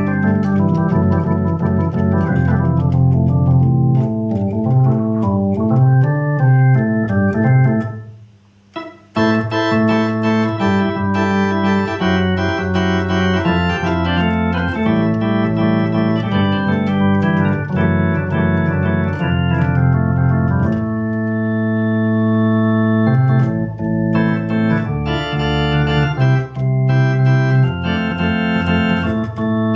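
Soviet Elektronika EM-141 'Venta' electric organ played with Hammond-style drawbar tones: chords over a bass line. It breaks off briefly about eight seconds in, then comes back with a brighter, fuller registration.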